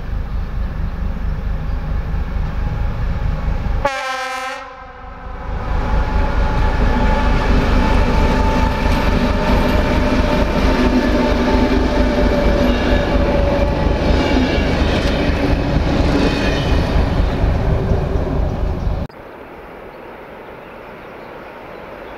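Class 749 diesel-electric locomotive hauling measuring cars past at close range: a low rumble as it approaches, then loud engine and wheel-on-rail noise with steady tones for about 13 s. The sound cuts off abruptly near the end to a quieter outdoor background.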